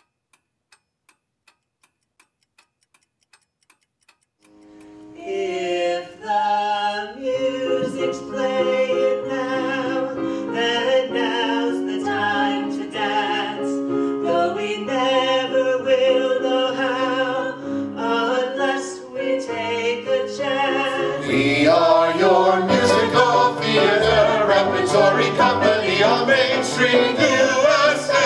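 Faint ticking about twice a second, then musical-theatre music begins about four seconds in, with singing over held notes; it swells to a louder, fuller ensemble sound after about twenty seconds.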